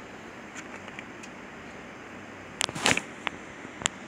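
Steady low hiss of room noise, then a quick cluster of light clicks and knocks about two and a half seconds in and a couple of single clicks near the end: handling noises from equipment being picked up and moved.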